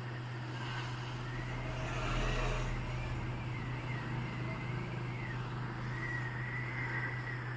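Hot-air blower running steadily with a low hum and a thin, wavering whistle-like tone, heating the phone's glass back panel to soften its adhesive before removal. The air rush swells briefly about two seconds in.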